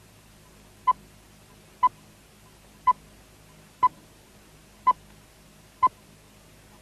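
Short electronic beeps of one steady pitch, repeating evenly about once a second.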